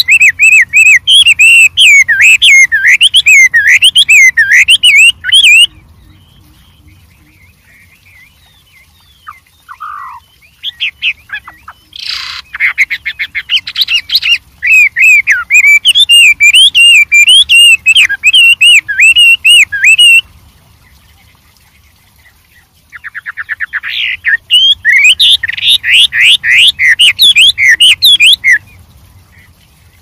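Chinese hwamei (Garrulax canorus) singing loudly: long runs of rapid, varied whistled phrases that sweep up and down, in three bouts separated by pauses of several seconds.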